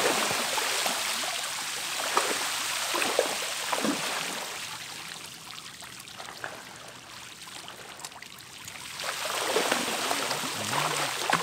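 A rain-like patter of many small splashes as dense baitfish skitter and spray across the surface, with trevally feeding among them. The patter fades midway and builds again about nine seconds in.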